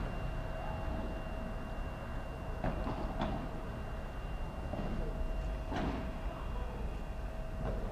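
Padel ball being hit back and forth with solid padel rackets: about four sharp pops a few seconds apart, two of them close together about three seconds in. A steady low rumble and a thin high whine run underneath.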